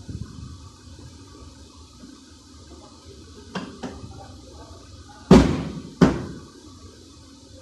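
Two light knocks, then two loud bangs less than a second apart, each with a short ringing tail: impacts on a car's rear bodywork as a bumper is fitted.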